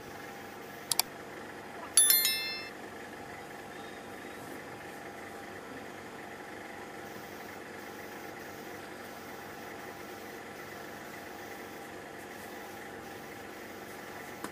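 A steady machine hum with several steady tones. A light sharp click about a second in, then a louder sharp metallic clink that rings briefly with several clear tones.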